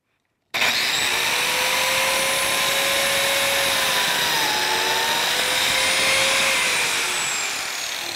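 Biscuit joiner switched on about half a second in, its motor running with a steady whine while it cuts a biscuit slot in a hardwood table leg. The pitch dips briefly near the middle as the blade takes the cut, and the motor starts to wind down near the end.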